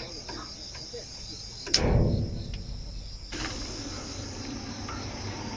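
Crickets or other insects chirping steadily. A sharp click and a loud low thud come about 1.7 s in and die away over a second and a half.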